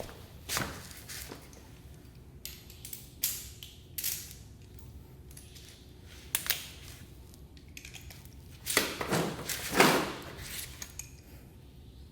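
Scattered clinks and knocks of metal tools and parts being handled and set down. The loudest is a cluster of knocks and scraping about nine to ten seconds in.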